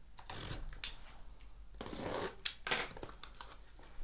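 Trading-card boxes and their packaging being handled on a table, with scattered sharp clicks and short scraping, rustling sounds.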